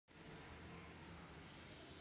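Near silence: faint room tone with a steady low hiss.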